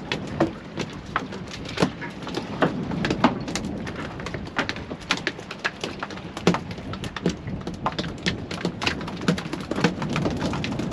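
Irregular sharp taps and slaps of freshly landed mackerel flapping against the fibreglass boat and tackle, over the steady wash of the sea against the hull.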